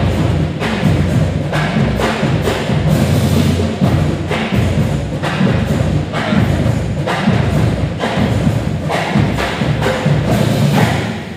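School pep band playing a drum-heavy tune, with steady, loud drum hits. The music stops and dies away near the end.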